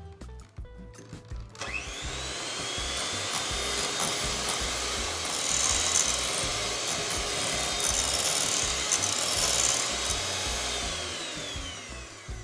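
Electric hand mixer whipping cream in a glass bowl. Its motor whine rises as it spins up about a second and a half in, runs steadily with the beaters churning the cream, and winds down near the end.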